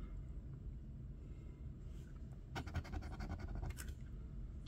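A coin scraping the latex coating off a bingo scratch-off lottery ticket: two brief bursts of short scratches, about two and a half seconds in and again near four seconds, over a faint low hum.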